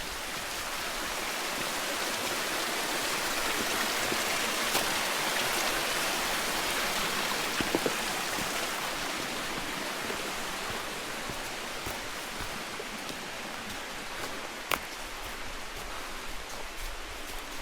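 Shining Creek's water rushing over rocks at a crossing, a steady noise that swells through the middle and then eases off.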